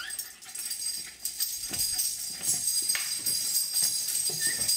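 Light metallic jingling throughout, with a few soft knocks.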